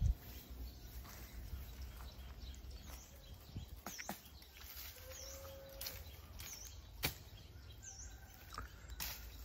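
Faint outdoor ambience: a bird repeating short, high chirps about once a second over a low rumble, with a few sharp faint knocks.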